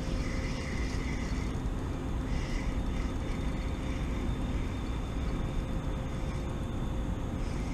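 Steady low rumble with a constant machinery hum.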